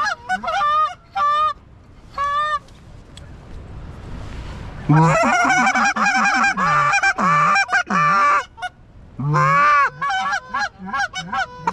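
Goose honking: a few separate honks in the first couple of seconds, then from about five seconds in a dense run of many overlapping honks and clucks.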